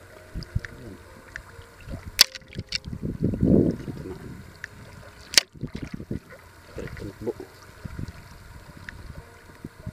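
Shallow seawater sloshing and splashing as someone wades through it, with a swell of sloshing a few seconds in. Two sharp knocks cut through, one about two seconds in and one about five and a half seconds in.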